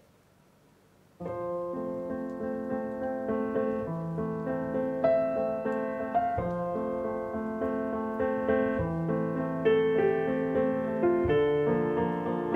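Near silence, then background piano music that starts suddenly about a second in and plays on as a run of notes.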